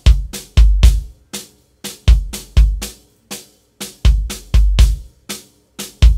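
Multitrack recording of a kick drum played back from its inside, outside and sub-kick microphones through compression: deep, punchy kick hits in a steady groove, with lighter snare strikes leaking into the kick mics between them.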